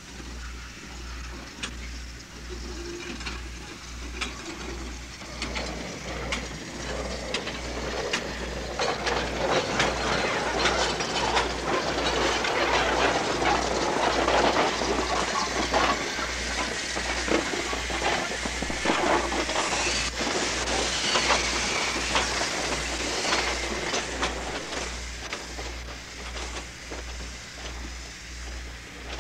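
Steam locomotive hissing steam, with scattered sharp clicks. The hiss swells about a third of the way in and fades near the end, over a low hum that pulses evenly.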